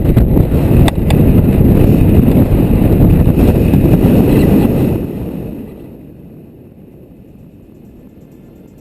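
Wind rushing and buffeting on the microphone of a GoPro carried on a slope-soaring RC glider. It is loud for about five seconds, then fades to a much lower level.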